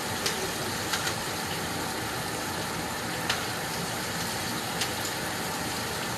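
Steady hum and hiss of a running machine, with a handful of short sharp clicks over the first five seconds.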